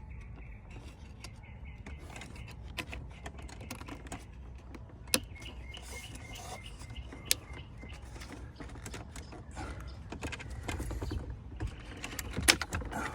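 Small clicks and rattles of plastic wiring-harness connectors being worked loose behind a car's dash screen, with three sharper clicks about 5, 7 and 12 seconds in, over a low steady hum.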